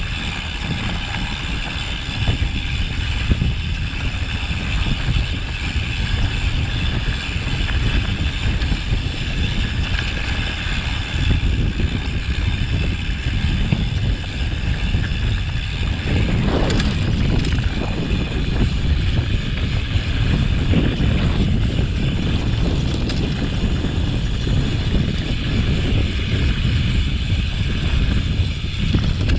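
Mountain bike descending a rough, rocky mountain trail: a steady, loud rumble and rattle of tyres and bike over stones, with a sharper clatter a little past halfway.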